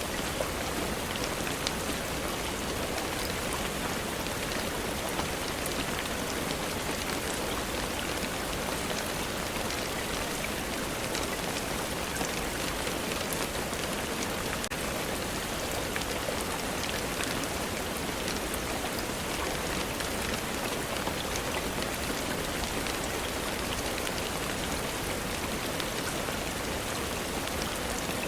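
Steady rainfall: an even hiss of rain with faint scattered drop ticks.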